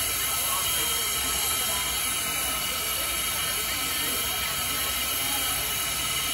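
Standing 2-6-0 steam locomotive No. 89 hissing steadily as steam escapes around its cylinders and running gear.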